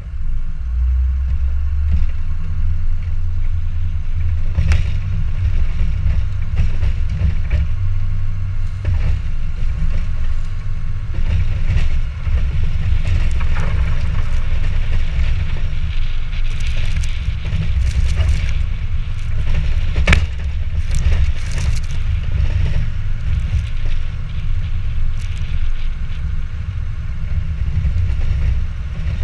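2006 Ford F250's 6.0 Powerstroke V8 turbo-diesel running while the truck plows snow, a steady low rumble heard from inside the cab. A single sharp click stands out about twenty seconds in.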